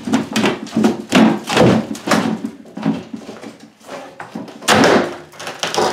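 Wooden base cabinet being pulled and rocked loose from the wall: a run of knocks, thuds and scrapes of wood, loudest near the end, as the paint line that sealed it to the wall breaks free.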